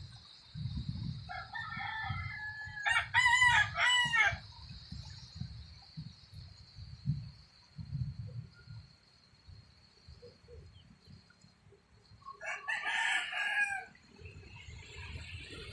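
A rooster crowing twice: one long crow starting about a second in, and a shorter crow near the end.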